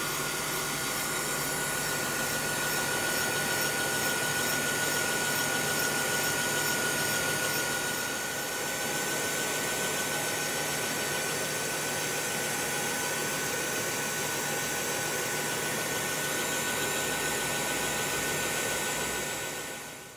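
Dumore tool post grinder running on a lathe, its stone grinding a turning steel shaft to clean it up: a steady grinding noise with a high whine that fades out near the end.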